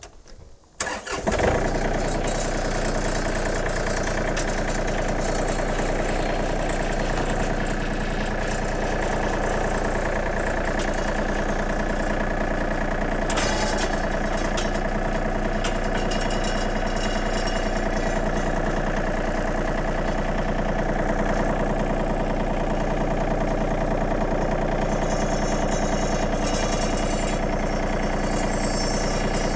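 John Deere 2032R compact tractor's three-cylinder diesel engine starts about a second in, then runs steadily while the loader is raised and the tractor moves up to the fence roll.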